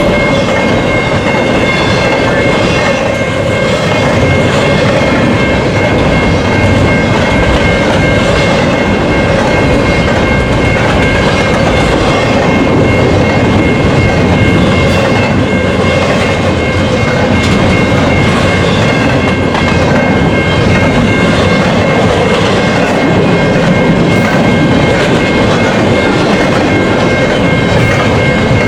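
Cars of a long CN intermodal freight train rolling past at speed: a continuous, steady rumble with wheel clatter over the rail joints. A steady high-pitched ringing tone runs through it.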